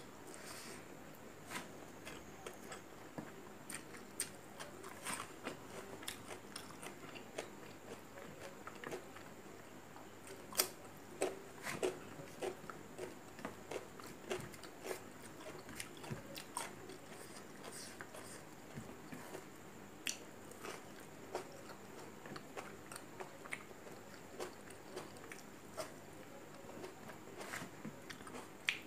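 Close-up mouth sounds of someone eating rice mixed with scrambled egg by hand: chewing with many short, sharp smacks and clicks.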